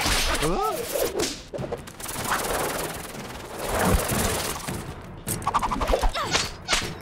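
Animated fight sound effects: whips swishing and cracking through the air, with hits and crashes as objects are struck, and brief cries about half a second in and again near the end.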